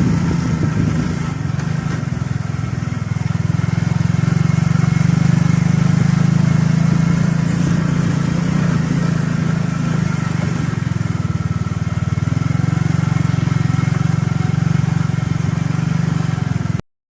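An engine running steadily with a strong low hum, cut off abruptly near the end.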